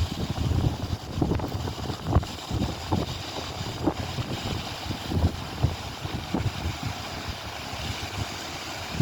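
Strong wind buffeting a phone's microphone: an uneven low rumble that comes and goes in gusts, with frequent sharp thumps.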